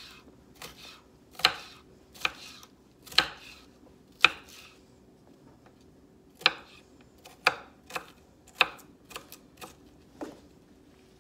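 Kitchen knife chopping green bell pepper on a wooden cutting board: about a dozen sharp chops at an uneven pace, with a pause of about two seconds midway.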